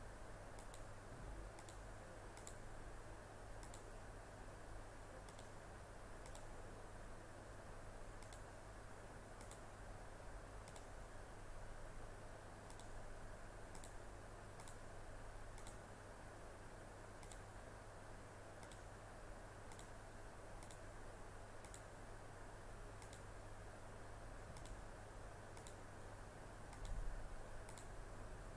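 Computer mouse clicking at an irregular pace, with a faint steady low hum underneath and a brief low bump near the end.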